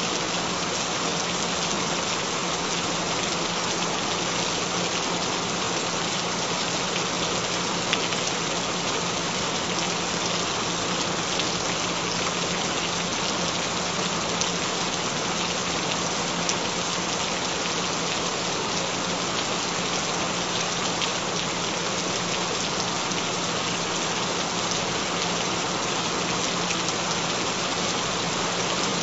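Steady rain falling on a surface, an even pattering hiss that never lets up, with a faint steady low tone underneath.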